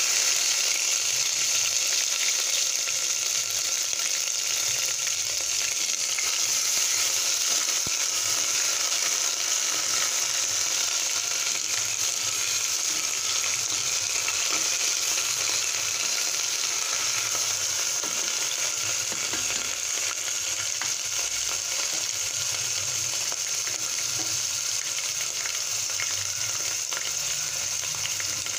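Onion, ginger, garlic and green-chilli paste frying in hot mustard oil, a loud steady sizzle that starts as the wet paste hits the oil and eases a little as it cooks, with a wooden spatula stirring it now and then.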